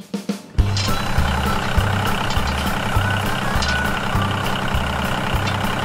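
Tractor engine sound, starting abruptly about half a second in after a few clicks and then running steadily with a low, regular chug.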